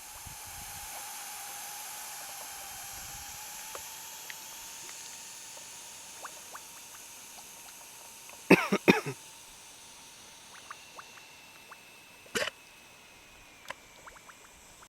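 Mud volcano gryphons seeping gas and muddy water: a steady hiss with scattered small pops of bursting bubbles. A brief loud sound with a bending pitch comes about eight and a half seconds in, and a single sharp knock about twelve seconds in.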